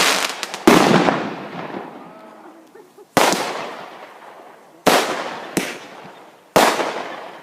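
Fireworks going off: five sharp bangs at irregular intervals, each trailing off in a long echo.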